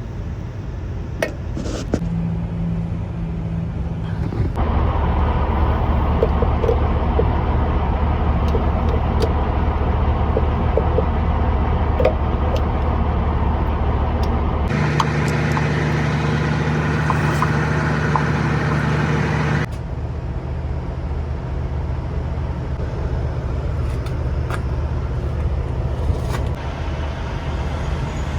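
A heavy diesel engine idling with a steady low hum, its pitch and loudness shifting abruptly a few times, with scattered light clicks over it.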